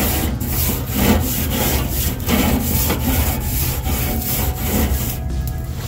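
Long-handled grill brush scrubbing the metal cooking grate of a charcoal kettle grill, in repeated back-and-forth scraping strokes about once a second.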